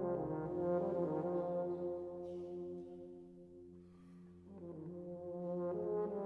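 Combined brass band playing slow sustained chords. The sound dies away to very soft about halfway through, then swells back up.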